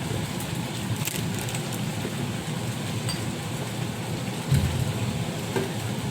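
Vegetable filling sizzling steadily in a hot pan after a splash of water, with a few clicks and a low thump about four and a half seconds in.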